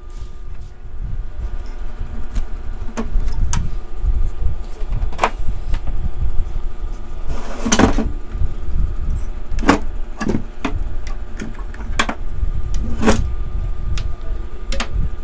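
Motorcycle engine running with a loud muffler, a steady low rumble, over a series of sharp clicks and knocks as a CRT TV's circuit board is slid out of its plastic cabinet.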